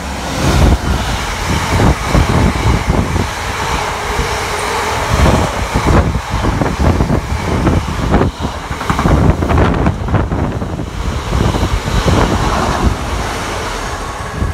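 A Class 66 diesel freight locomotive with a two-stroke V12 engine passes close by at the head of a heavy goods train of hopper wagons. The long line of wagons follows, rumbling with irregular clattering as the wheels run over the rails. Wind gusts on the microphone are mixed in.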